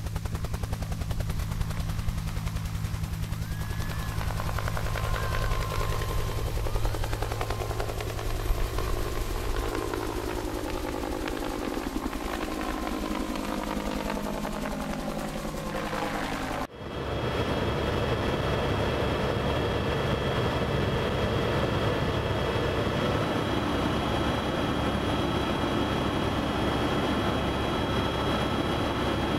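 Helicopter rotor chop and turbine whine, its pitch slowly falling. About two-thirds of the way through it cuts abruptly to the steady, even engine and rotor noise heard inside the helicopter's cabin.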